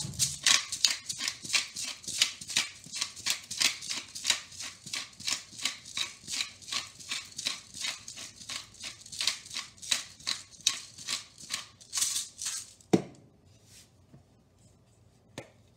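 Twist-top pepper grinder turned by hand, a crunching rasp repeated about three times a second for about twelve seconds. Then a single knock as it is set down on the counter.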